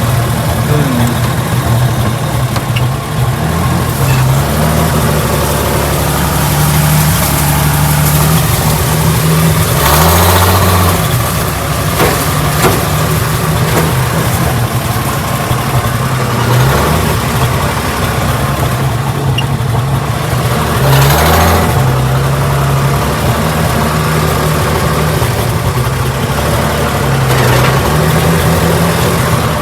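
1968 Ford Bronco's engine running as it drives slowly over rough farm ground, its engine speed rising and falling in steps. Two short rushes of noise come about ten and twenty-one seconds in.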